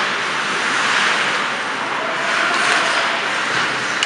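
Steady ice-rink game noise during play: skates scraping on the ice with the hum of the arena.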